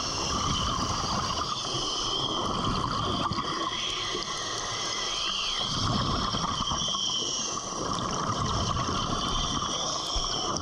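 Steady underwater hiss and gurgling of water and air bubbles, heard through a diving camera's housing as the diver swims.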